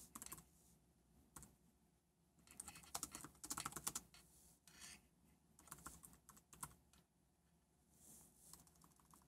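Faint typing on a computer keyboard, keys clicking in short bursts with brief pauses between.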